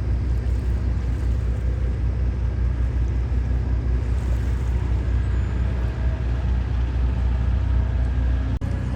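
Boat engine running steadily under way, a constant low rumble with some wind and water noise over it.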